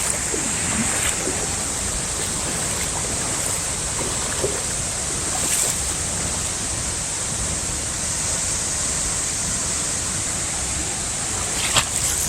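Steady rushing roar of a powerful waterfall, with a brief knock near the end.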